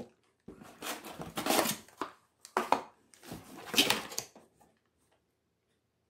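Clear plastic packaging bag crinkling as it is handled, in several irregular rustling bursts over about four seconds.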